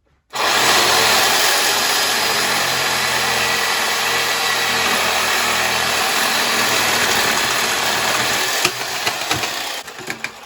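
A power saw cutting PVC pipe: it starts abruptly, runs steadily for about eight seconds, then winds down and stops near the end.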